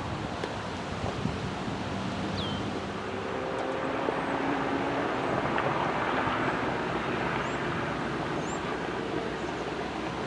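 EMD GP9 diesel locomotive, its V16 two-stroke engine running, approaching at the head of a long freight train, with steady wind noise on the microphone. The sound swells slightly through the middle.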